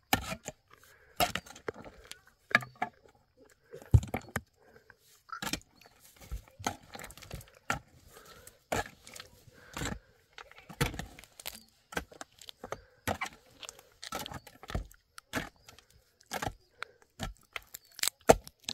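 Hand tools striking and scraping rock, giving irregular sharp knocks and scrapes about once a second, as stone is broken up and cleared.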